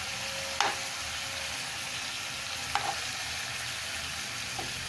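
Yogurt-marinated chicken pieces sizzling steadily in oil in a frying pan, with a spatula clicking against the pan three times as the pieces are turned over.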